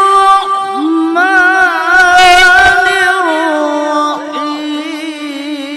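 A male qari chanting Quranic recitation (tilawah) in a loud, high voice, drawing out "ar-Rahman" of the Basmala as one long melismatic phrase with rapid ornamental wavers. About three and a half seconds in, the pitch steps down to a lower held note.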